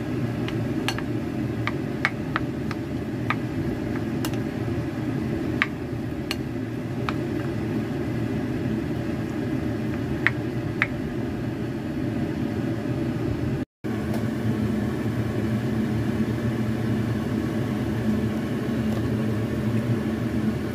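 Plastic spatula tapping and scraping against a glass bowl while mixing cooked rice, a scattering of sharp clicks over the first ten seconds or so, over a steady low whir like a fan or motor. The sound drops out for a moment about 14 seconds in, then the whir goes on alone.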